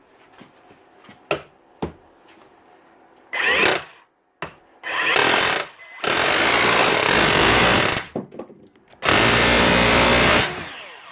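Hilti TE 7-A 36 V cordless SDS hammer drill, rebuilt with a new armature and brushes, run in four bursts with its bare striker pressed against steel to test the hammer action: two short bursts, then two longer runs of about two seconds and a second and a half. It runs strongly, showing the repaired motor and hammer mechanism working.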